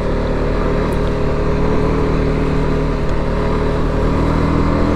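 BMW G310GS's single-cylinder engine running at a steady cruise on a gravel track, its pitch edging up slightly near the end, over a steady rushing noise.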